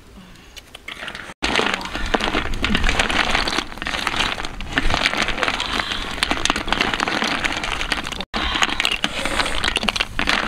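Snails and duck eggs sizzling and crackling in a large hot wok, with many sharp clicks as the shells hit the pan and are stirred. It starts loudly about a second and a half in and breaks off twice for an instant.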